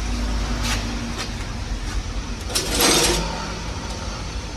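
Airman PDW280 welding generator's diesel engine running steadily, with a brief hiss about three seconds in.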